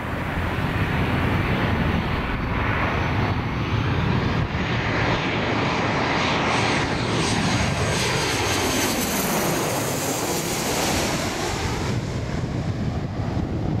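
Boeing 737's twin turbofan engines on final approach, passing low overhead: a loud jet rumble and hiss that peaks as the aircraft goes over, with a sweeping, falling-then-rising whoosh near its closest point.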